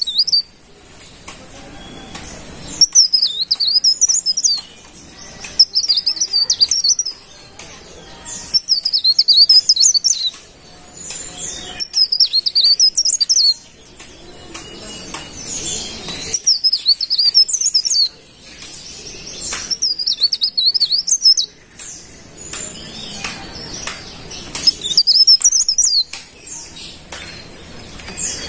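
A cikrak daun leaf warbler singing: a run of high, rapid, zigzagging warbled phrases, each a second or two long, repeated every few seconds with short pauses between.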